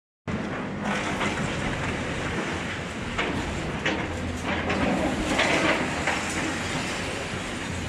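Excavator engine running under a steady low hum as its arm tears into a concrete building, with irregular crunching and clattering of breaking masonry and falling rubble.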